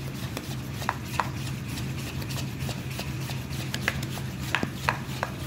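Spoon beating thick gram-flour batter in a stainless steel bowl: wet scraping and slapping with scattered sharp clinks of the spoon against the bowl, over a steady low hum. The batter is being whipped to lighten it so the pakoras puff up.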